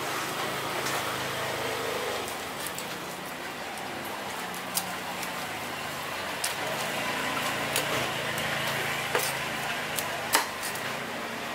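Steel cleaver knocking on a wooden chopping block as a fish is sliced and chopped: a handful of sharp knocks spread through the second half, the loudest about ten seconds in, over a steady background hum.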